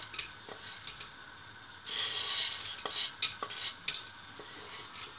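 Whole spices pushed off a plate with a spoon into hot oil in a pressure cooker: the spoon scrapes and taps on the plate, with several sharp clicks. About two seconds in there is a burst of sizzling as the spices hit the oil.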